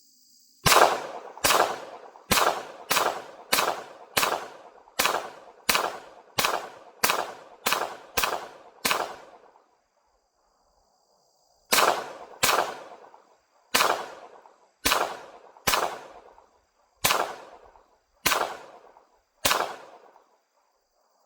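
Unsuppressed .22 LR shots from a Taurus TX22 pistol, pretty loud: about sixteen sharp cracks in quick succession, a pause of about two seconds, then eight more about a second apart. Each shot echoes off the surrounding valley. Insects chirp faintly underneath.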